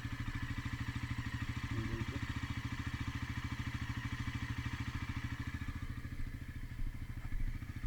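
Bajaj Pulsar NS400Z's 373 cc single-cylinder engine idling steadily: a smooth, even beat of exhaust pulses.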